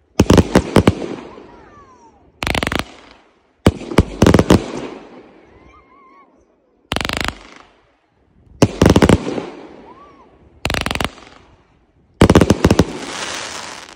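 Aerial fireworks bursting overhead: volleys of sharp bangs in quick succession, about every one to two seconds, each trailing off into crackling. A few faint whistles sound between them.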